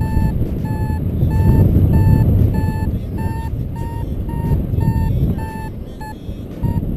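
Paragliding variometer beeping its climb tone, short high beeps about two a second, pausing briefly near the end: the glider is climbing in lift. Loud wind rush on the microphone underneath.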